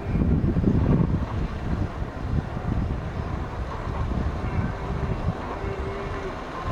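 Wind buffeting the microphone: an uneven low rumble, a little stronger in the first second.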